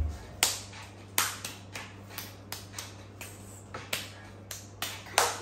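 Hand claps, sharp and irregular, about two to four a second, over a steady low hum.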